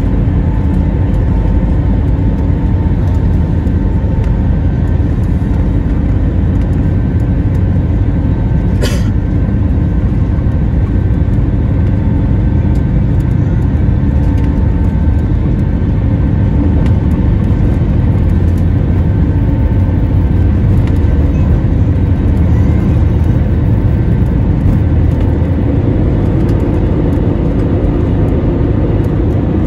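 Airbus A320 jet engines at takeoff thrust, heard from inside the cabin over the wing during the takeoff roll: a loud, steady rumble with a whine from the engines, up to rotation near the end. A brief high click or squeak cuts through about nine seconds in.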